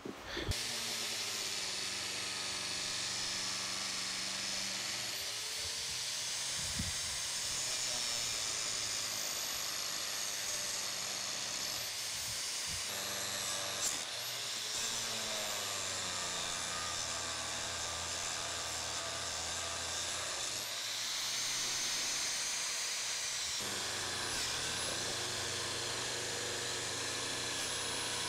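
Seven-inch angle grinder with an abrasive disc grinding into a cracked cast iron steam chest casting: a steady whine and rush of disc on metal, its pitch dipping and recovering several times as it is pressed into the work. The crack is being ground out to sound metal ahead of brazing.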